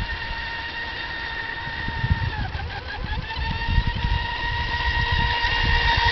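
Radio-controlled speedboat's motor running at speed with a steady high whine. The pitch dips briefly a little over two seconds in, then the whine grows louder as the boat comes closer.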